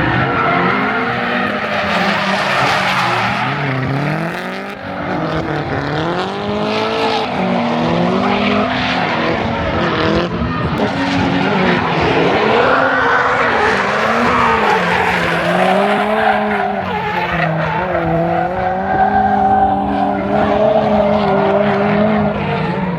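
Drift cars' engines revving up and down over and over, with tyres squealing and skidding as they slide.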